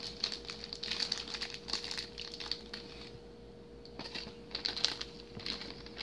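Plastic zip-top bag of shredded cheese crinkling and rustling in short, irregular bursts while cheese is handled and spread by hand, with a quieter stretch about halfway through.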